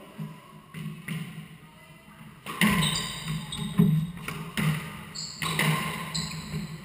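Squash rally: a few light knocks, then from about two and a half seconds in the ball being struck and hitting the court walls in sharp, echoing smacks about once a second. Short high squeaks from shoes on the wooden floor come in between.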